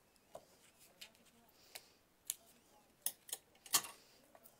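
Scissors snipping double-sided tape and the tape and card being handled: a scattering of short sharp clicks and ticks, the loudest near the end.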